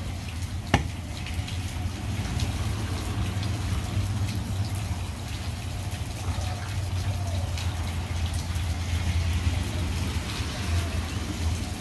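Steady hiss of falling water with a low hum underneath, and one sharp click about a second in.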